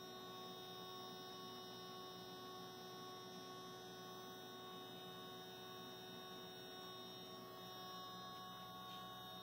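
Faint, steady electrical hum made of several steady tones over a light hiss, unchanging throughout.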